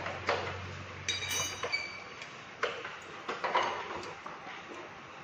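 Scattered light metallic clinks and knocks, one ringing briefly about a second in, over a faint steady low hum: typical motorcycle service-workshop sounds.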